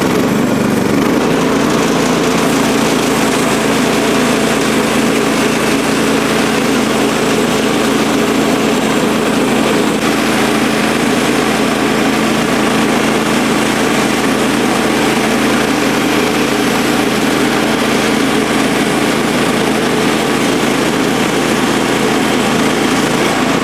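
Kohler Command Pro 14 hp single-cylinder gas engine on a Woodland Mills HM130MAX band sawmill, running steadily under load while the band blade cuts along an ash log. The sound is loud and even, with a slight shift in its low note about a second in.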